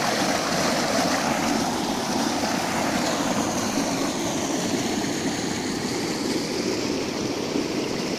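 Stream water rushing steadily over rocks in a small cascade.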